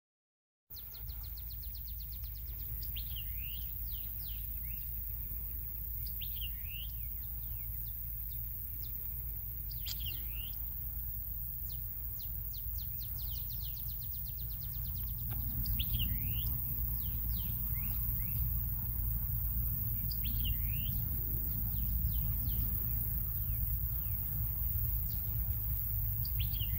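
A songbird repeating a short song phrase about every three to four seconds, each a quick run of high ticks followed by a swooping note, over a steady low rumble that gets louder about halfway through.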